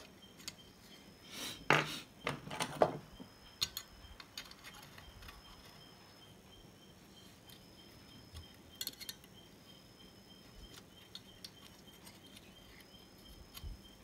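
Small tools and electronic parts handled on a workbench: a few sharp clicks and clinks about two seconds in, another brief clatter around nine seconds, and faint room noise in between.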